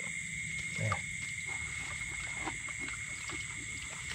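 Steady night chorus of frogs and insects, a constant high drone, with a few faint short splashes and knocks close by.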